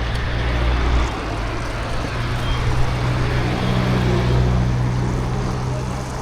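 A running engine's steady low hum under a broad wash of noise.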